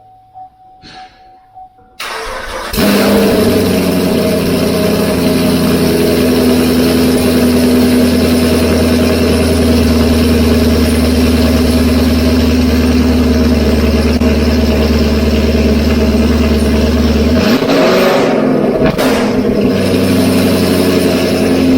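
A 2016 Camaro SS's 6.2-litre LT1 V8 is cranked by the starter about two seconds in, catches within a second, and settles into a loud, steady idle. It is breathing through freshly fitted long-tube headers and an X-pipe on its first startup after the install.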